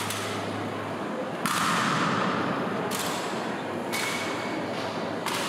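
Honor guards' drill during a changing of the guard: five sharp cracks of boots and rifles striking a stone floor, a second or so apart, each ringing on in a large echoing hall. A faint steady hum runs underneath.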